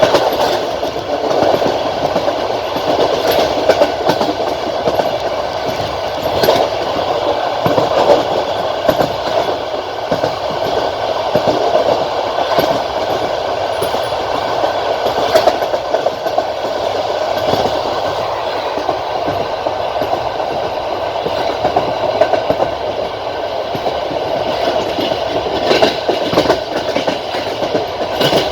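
Passenger train carriage running at speed on the track: a steady rolling rumble of the wheels with scattered clacks as they pass over rail joints, heard from the carriage window.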